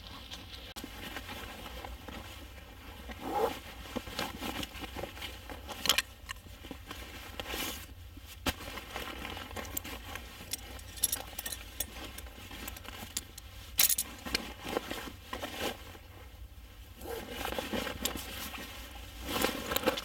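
Irregular rustling and scraping with scattered sharp clicks and some light metallic jingling, the sound of camp gear being handled while a tarp shelter is pitched.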